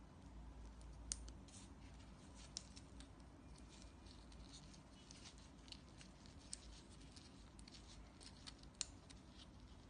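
Faint small clicks and scrapes of hard plastic as fingers work at an LED dog leash's black plastic light module, with a sharper click about a second in and another near the end.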